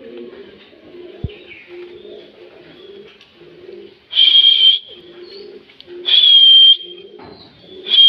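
Indian ringneck parakeet giving loud, shrill screeching calls, three in all, about two seconds apart, the last right at the end, over a quieter low-pitched warbling sound in the background.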